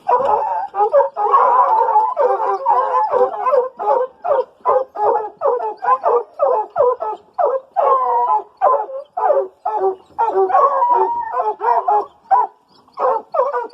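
Hunting hounds barking and baying in a fast, steady run of calls, about two a second, with several voices overlapping near the start.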